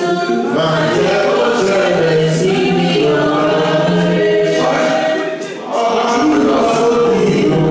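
A choir singing a gospel worship song, with a short breath between phrases about five seconds in.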